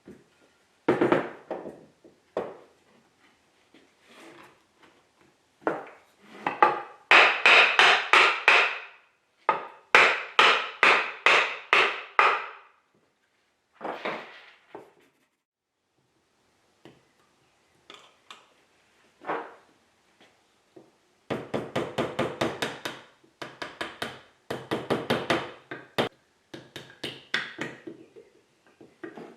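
Hammer tapping on wood in several quick runs of about four to five strikes a second, with single knocks between: wooden dowel pins being driven into their glued holes in a wooden tail vise.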